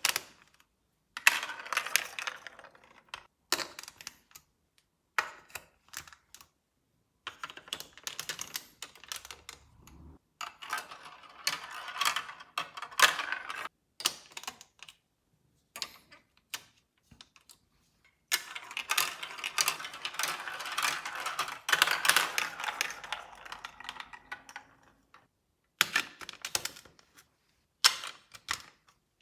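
Marbles rolling and clattering through a plastic LEGO Duplo marble run: a dense, rapid rattle of clicks that comes in several stretches, each cutting off abruptly into silence.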